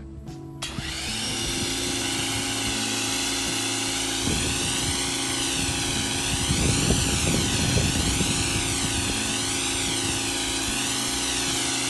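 Pressure washer kicking on about a second in when the trigger is pulled, then running steadily: a motor-and-pump whine under the loud hiss of the spray, its tone swaying back and forth as the spray is swept, with uneven low rumbling from the water striking the surface.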